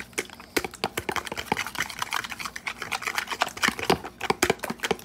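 Raw eggs being whisked with a fork in a plastic bowl: rapid, irregular clicks of the tines against the plastic.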